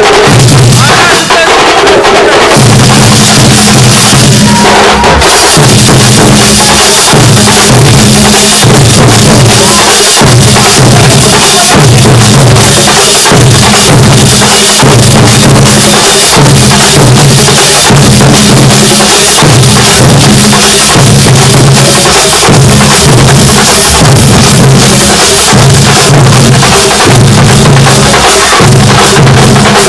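A Thambolam percussion band plays loud, fast, continuous drumming, with bass drums and snare-type drums beating together. A low droning note pulses in and out under the beats.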